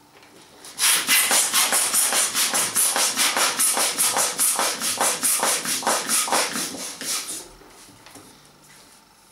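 Hand balloon pump worked in quick, even strokes, about four a second, each stroke a rush of air, inflating a latex balloon. The pumping starts just under a second in and stops about seven seconds in.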